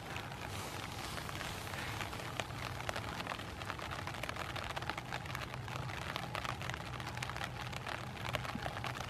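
Rain falling on an umbrella overhead: a dense, irregular patter of drops ticking on the canopy. A low steady hum runs underneath.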